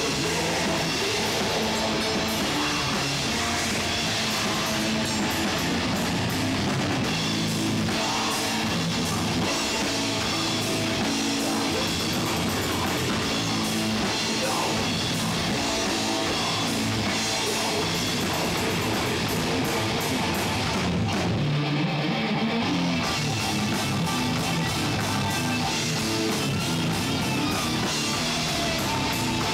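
Heavy metal band playing live, with distorted electric guitars over a pounding drum kit, loud and dense throughout. About two-thirds of the way through, the cymbals and low end drop out for a second or two before the full band comes back in.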